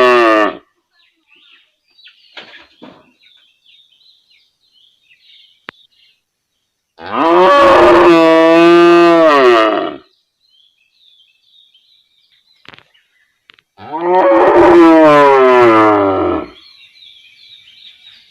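Cow mooing: the tail of one moo right at the start, then two long moos of about three seconds each, separated by pauses of several seconds.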